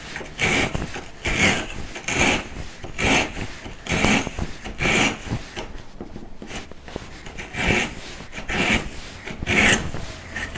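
Japanese replaceable-blade handsaw crosscutting wood, its teeth rasping through the cut in back-and-forth strokes about once a second, with a short pause midway.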